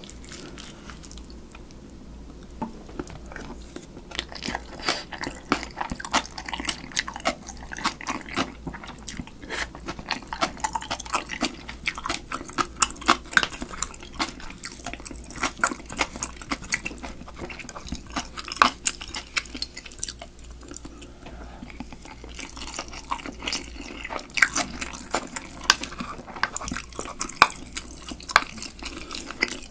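Close-miked chewing and wet mouth sounds of a person eating spoonfuls of rice mixed with spicy marinated crab seasoning (yangnyeom-gejang), full of small sharp clicks and smacks. A plastic spoon scrapes and taps the rice bowl between mouthfuls.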